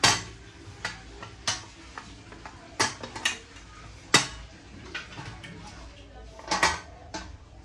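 Old brass kitchen utensils being handled, giving about ten sharp metallic knocks and clinks at uneven intervals.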